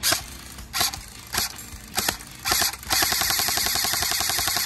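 FN M249 Para airsoft AEG firing: five short trigger pulls about every half second, then about three seconds in a sustained full-auto burst, the electric gearbox cycling rapidly and evenly.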